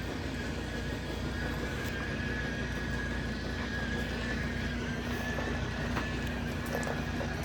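Washing machine running, a steady hum under a constant high-pitched whine.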